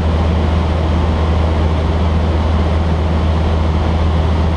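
Steady drone of a Cessna 152's four-cylinder Lycoming O-235 engine and propeller in flight, heard inside the cabin: a low, even hum with a wash of air and engine noise above it.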